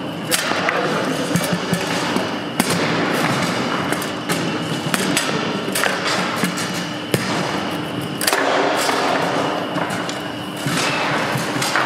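Table-football game in play: irregular sharp clacks and knocks of the ball being struck by the rod players and hitting the table walls, the loudest about half a second, two and a half and seven seconds in, over steady background noise.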